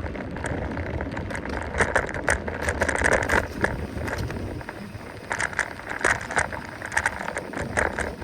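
Mountain bike rattling and clicking over a rough trail, with wind rumbling on the microphone and repeated rushes of noise.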